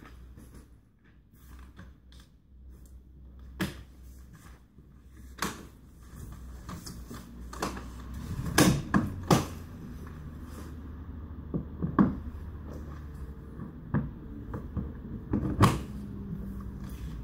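Scattered plastic-and-metal clicks and knocks from a Camarelo Baleo Shine pram being handled, its carrycot and hood fittings clicking and bumping as they are moved, with a cluster of louder knocks about halfway through and another near the end. A low steady hum lies underneath.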